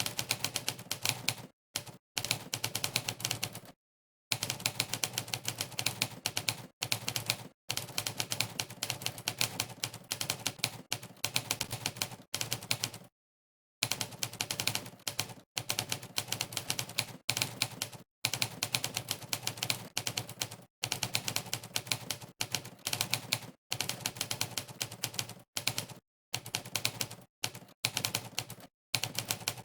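Typewriter keystroke sound effect of the Monkeytype typing site, played once for each keypress: fast runs of rapid clacks broken by brief silent pauses, the longest lasting under a second just before halfway.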